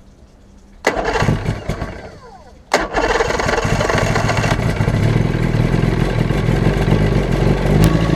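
1996 Force 120 two-stroke outboard motor being started after a stator replacement. It fires about a second in and fades off, then catches again near three seconds and keeps running steadily.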